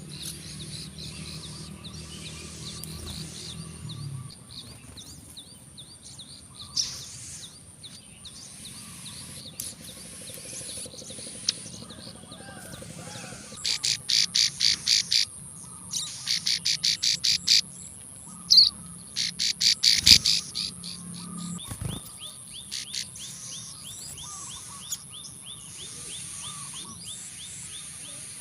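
Plain prinias (ciblek sawah) calling: faint repeated short high notes, broken in the middle by three loud bursts of rapid sharp notes, about seven a second, over a steady high-pitched hiss.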